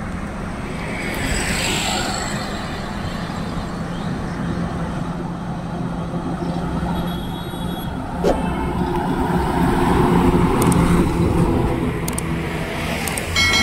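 Highway traffic going by close at hand: loaded trucks and cars drive past with a steady engine drone and tyre noise. The noise swells as vehicles pass, once about two seconds in and again louder around ten seconds in.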